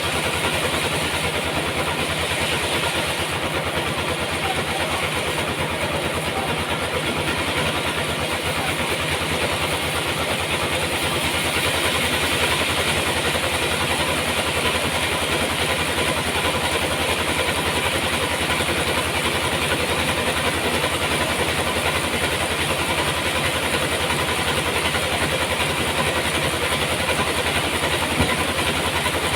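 Sawmill machinery running steadily, an engine-like drone with a fine even pulse low down and a hiss above it, with no change in pace.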